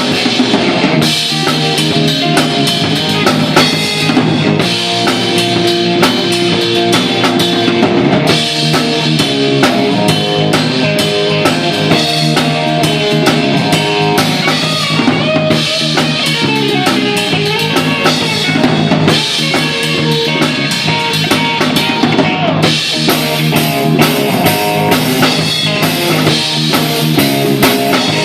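A band playing a rock song at a sound check: a full drum kit with bass drum and snare, plus guitar, loud and continuous.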